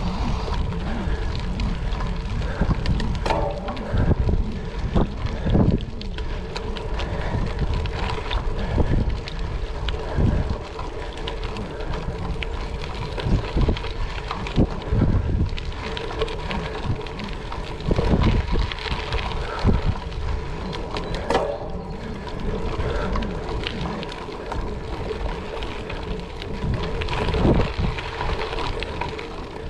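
Wind buffeting the microphone of a camera on a gravel bike under way. Under it are tyre noise and frequent small knocks and rattles from riding over gravel.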